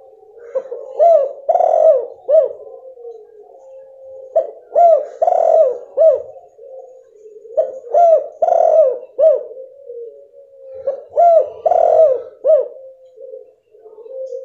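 Female spotted dove (tekukur) cooing: four phrases of several short arched coos each, repeated about every three seconds.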